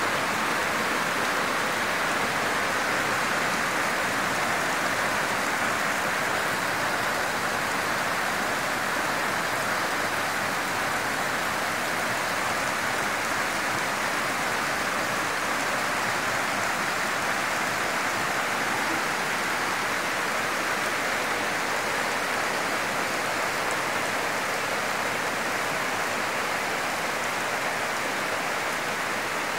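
Steady heavy rain: a dense, even hiss that holds the same level throughout.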